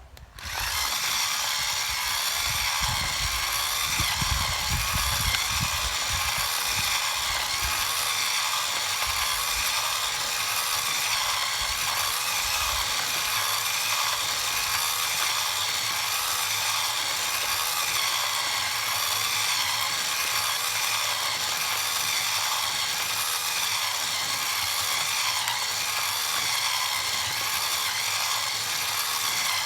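Coffee grinder starting up about half a second in and grinding beans steadily on a fine setting, with heavier low knocking in the first few seconds; it grinds slowly.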